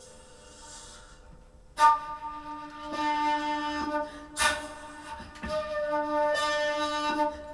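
Glissando flute played through effect pedals: a faint breathy hiss, then about two seconds in a sharp, loud attack opening a sustained low note full of overtones, with a second sharp attack about halfway through.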